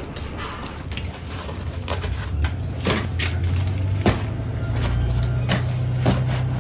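Firm baked buns knocking and clicking against one another and the grill bars as they are set in a row over a charcoal fire, over a steady low mechanical hum.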